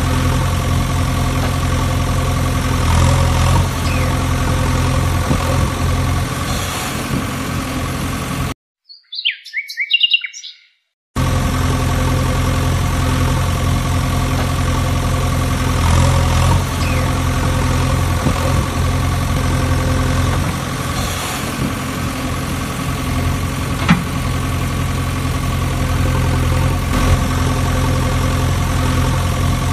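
An engine idling steadily at an even pitch. About a third of the way in it breaks off for a couple of seconds, and only a bird's chirps are heard.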